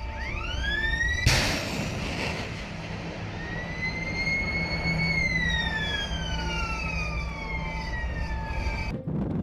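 Evolved Sea Sparrow Missile launch from a shipboard box launcher. A rising whine builds for about a second, then the rocket motor fires with a sudden loud blast. A long whistling tone follows, climbing slightly and then falling steadily for several seconds, over a low rumble.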